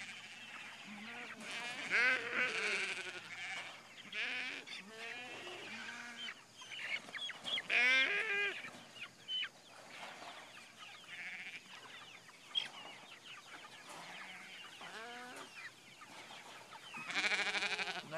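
A flock of jumbo broiler chickens clucking and calling over one another, many short overlapping calls, with a loud burst of calls near the end.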